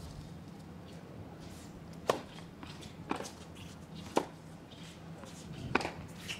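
Tennis ball struck by racquets on a second serve and the rally that follows: three loud, sharp pops about two seconds apart, the first about two seconds in, with a fainter knock between the first two.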